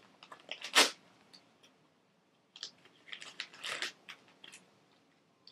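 Crinkling and rustling of plastic packaging being handled, in short crackly bursts, the loudest about a second in and a cluster of smaller ones in the middle.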